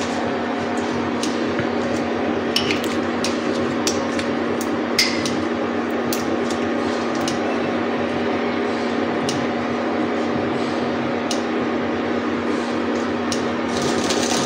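Scattered light clicks and taps from a metal candle mould being handled and set on a plastic tray, over a steady hum and hiss.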